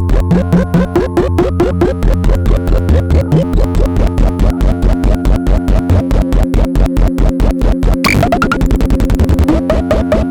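Electronic music from a Bastl Kastle v1.5 and a Hikari Monos synthesizer played together: a fast, steady pulsing pattern of pitched tones over a low bass pulse. About eight seconds in, a burst of noise with a faster stutter cuts in for about a second and a half, then the pulse returns.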